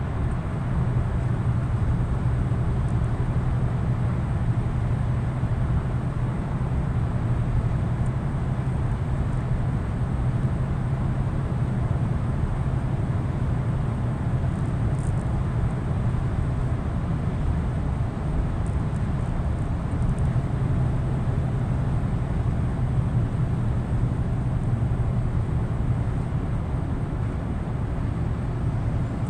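Scania truck's diesel engine running at a steady cruise, a constant low hum under even tyre and road noise, heard from inside the cab.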